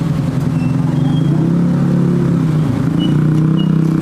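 Motor vehicle engine running close by on the road, a steady low drone whose pitch dips briefly and then settles again near the end.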